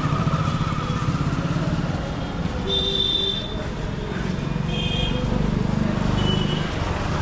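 Busy street traffic: motorcycle engines running close by, with short horn beeps about three seconds in, around five seconds, and again just after six.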